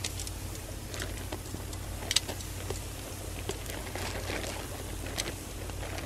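Chicken sizzling on a wire grill over glowing charcoal, with scattered crackles and pops from the embers over a steady low rumble; the sharpest pop comes about two seconds in.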